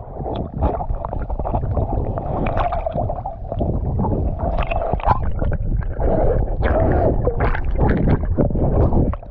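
Choppy water sloshing and splashing right at the microphone as it bobs at the waterline, gurgling as it washes under, with a swimmer's arm stirring the surface. Irregular splashes come throughout.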